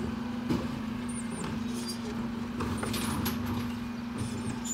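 Dennis Elite 6 bin lorry running steadily at the kerb while its Terberg electric lifter tips a wheelie bin into the Olympus body, with a few sharp knocks and clatters from the bin and its contents.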